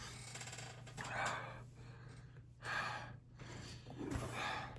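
A man breathing hard through the mouth, three heavy gasping exhales about a second and a half apart, from the burn of very spicy food.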